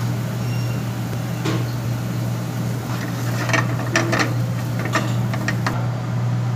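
A steel ladle clinks and taps against a non-stick frying pan about half a dozen times in the second half, over a steady low kitchen hum.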